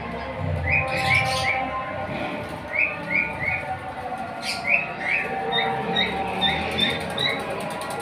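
A flock of small caged aviary birds chirping and twittering. Short chirps repeat in runs of two or three over a steady background of chatter, with a quick series of higher notes in the second half.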